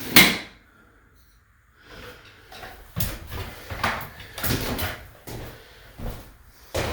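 Knocks and scrapes from a plastic smoke alarm being handled and worked at on its mount while someone tries to get it off: one sharp knock at the start, then a run of irregular knocks and scrapes from about two seconds in.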